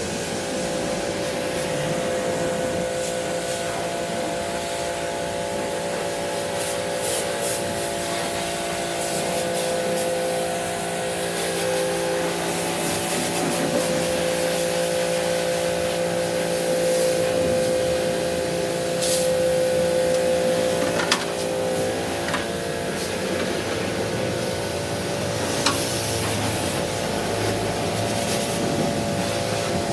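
A small electric motor running steadily with a hissing spray over it, as in spray-cleaning an air conditioner, with a few light clicks or knocks.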